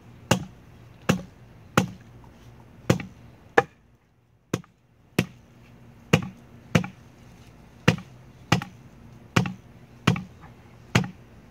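Block of wood hammering a water-soaked knot in a heavy-duty 2-inch ratchet tie-down strap that rests on another wooden block: about fourteen sharp knocks, roughly one every three-quarters of a second, with a short pause near four seconds in. The pounding works the tight knot looser.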